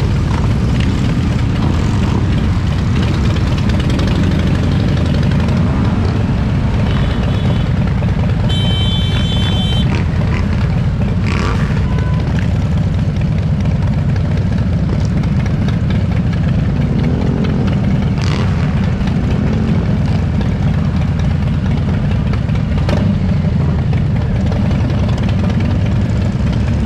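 Harley-Davidson V-twin motorcycle engines running steadily with a deep, loud rumble as the bikes ride together. A short high tone sounds about nine seconds in, and a few sharp knocks come through later.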